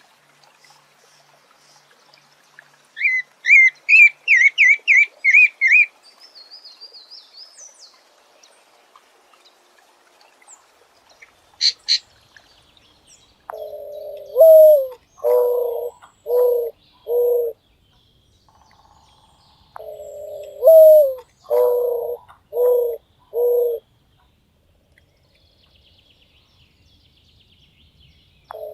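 A pale-breasted thrush sings a quick phrase of about eight rising whistled notes. From about halfway, an eared dove coos in low phrases: a longer rising coo followed by three or four short coos. The phrase comes twice, and a third begins at the very end.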